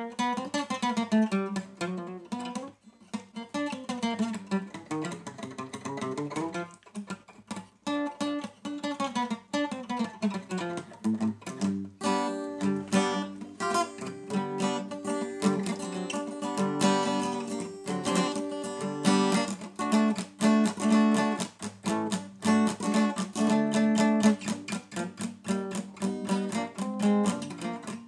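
Acoustic guitar with a capo, played solo: picked notes and short phrases with two brief breaks in the first part, then from about twelve seconds in a steady, busy strummed rhythm pattern, the shuffle rock-ballad rhythm being taught.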